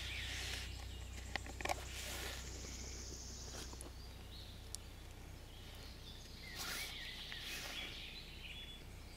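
Faint outdoor ambience: a few distant bird chirps, loudest in the second half, and a couple of small clicks about a second and a half in, over a steady low hum.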